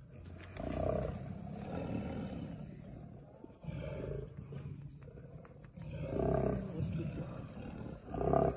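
Male Bengal tigers roaring: a series of deep calls that swell and fade about five times.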